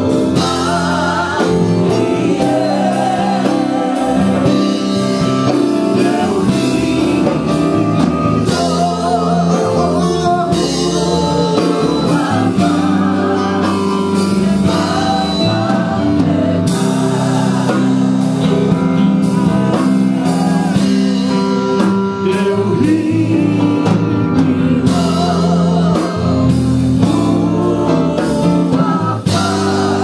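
Live gospel praise-and-worship music: several voices singing over a band with bass and drums.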